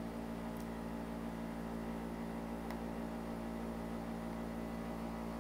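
Steady low electrical hum with a faint hiss, the background noise of a desk recording setup, broken by a couple of faint clicks.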